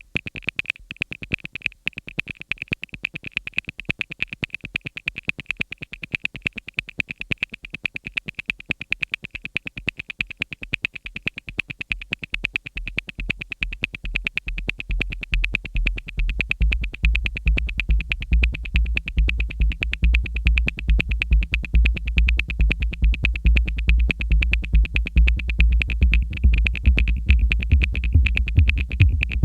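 Electronic synthesizer music: a fast, evenly repeating high pulse, joined about halfway through by a deep bass that builds and grows louder toward the end.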